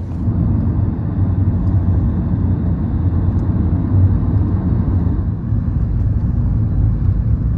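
Steady low rumble of road and wind noise inside a car travelling at highway speed.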